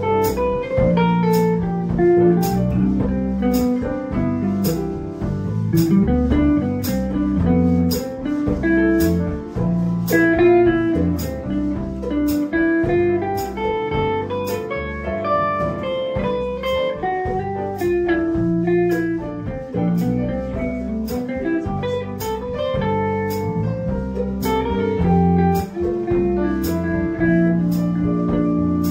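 Small live band playing, with guitar to the fore over piano, electric bass and a drum kit whose cymbal strikes at a regular beat.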